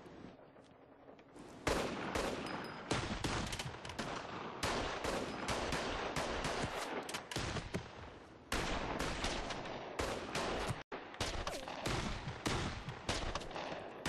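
Heavy gunfire that breaks out suddenly after a quiet second and a half: rapid, overlapping shots and bursts from several guns, with a split-second break about three quarters of the way through.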